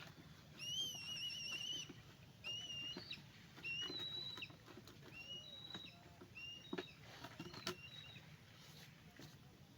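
Birds calling: a wavering, trilled whistle lasting about a second, followed by a series of short, high whistled notes, with a few faint clicks.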